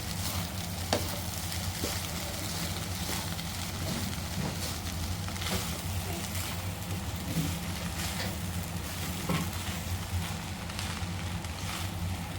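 Fried rice being stirred in a hot pan: a steady sizzle with a few short scrapes and taps of the ladle against the pan, over a steady low hum.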